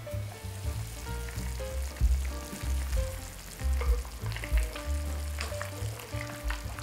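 Thick beef stew simmering and bubbling in a cast-iron pot. In the second half a wooden spatula stirs through it, with scraping and clicking against the pot. Soft background music plays underneath.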